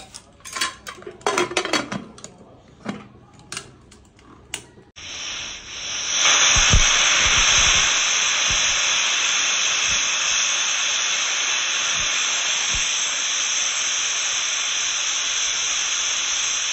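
A pressure cooker whistle goes off: after a few light knocks, a loud, high steam hiss starts suddenly about five seconds in, swells a second later and then holds steady. This is the single whistle that marks the cooker reaching full pressure, the signal to turn off the gas.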